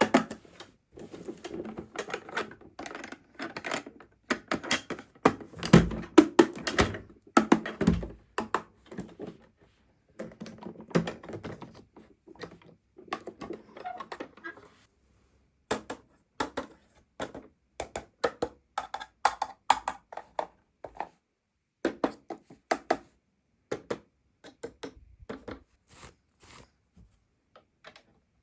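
Small plastic toy pieces being handled on a table: irregular clicks, taps and light knocks, several in quick runs, with short pauses between.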